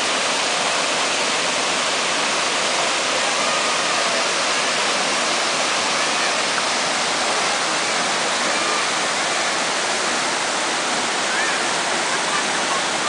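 Steady rush of a waterfall pouring into a pool, an even, unbroken roar of falling water.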